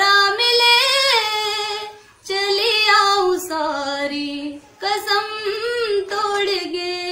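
A woman singing a Hindi film song unaccompanied, in long held, wavering phrases with two short pauses for breath.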